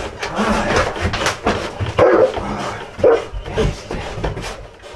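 German Shepherd barking in short loud bursts, loudest about two and three seconds in, with knocks between the barks, while working a bite sleeve in protection training.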